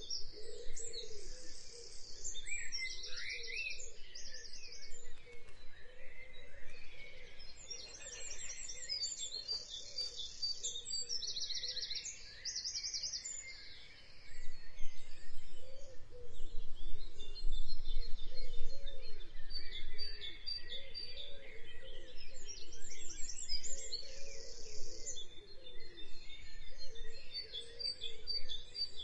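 Several birds chirping, with repeated high trilled phrases and a lower wavering call underneath. A low rumble swells about halfway through, then fades back.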